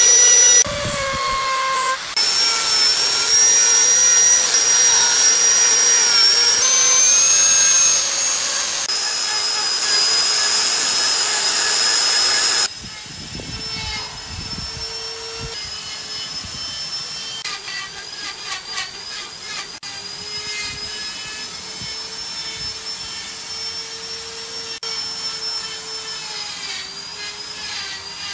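Handheld electric grinder sanding a wooden carving, a loud high-pitched whine whose pitch shifts slightly as the tool is pressed and moved. About twelve seconds in the loudness drops abruptly to a quieter, steady whine that lasts to the end.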